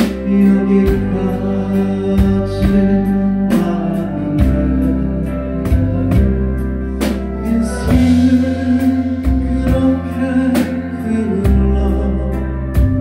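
A man singing into a handheld microphone with a live band: drum kit, electric bass guitar and held chords, with regular drum hits throughout.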